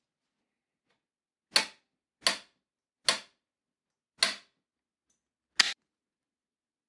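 Five sharp metallic snaps, unevenly spaced over about four seconds, from a first-generation Dura-Ace side-pull caliper brake being worked by hand, its arms snapping closed on the front rim.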